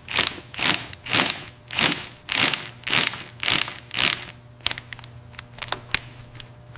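Ratchet wrench clicking in steady strokes, about two a second, for roughly four seconds, then a few lighter, scattered clicks.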